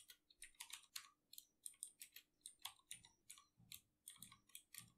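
Faint computer keyboard typing: irregular keystrokes, several a second.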